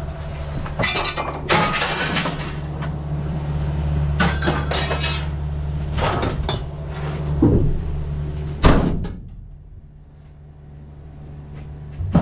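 Idling vehicle engine under loose scrap metal clinking and clanking as it is handled. After a loud knock about eight and a half seconds in, the engine hum stops and it goes much quieter.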